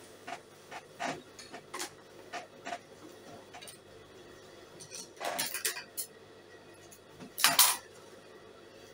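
Fabric rustling and swishing as a large piece of shiny cloth is lifted and rearranged on a sewing machine table, with scattered light clicks and knocks. The loudest rustle comes near the end.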